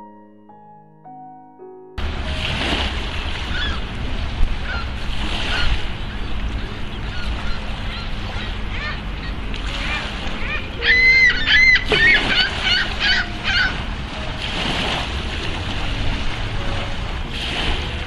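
Brief soft piano music, then wind buffeting the microphone over lapping water. Partway through, a bird calls several times in quick succession with high, bending calls.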